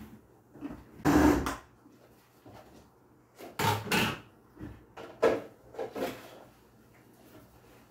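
A few irregular knocks and clunks of kitchen containers and utensils being handled on a counter, the loudest about a second in, then a pair a few seconds later and smaller ones after.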